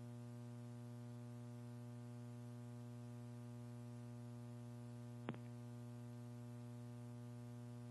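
Steady electrical mains hum with a stack of evenly spaced overtones, and one short click about five seconds in.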